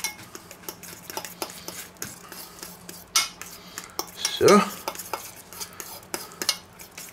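Metal cutlery stirring egg yolk and ground almonds in a small stainless-steel bowl, with quick, irregular clicks and scrapes of metal on metal.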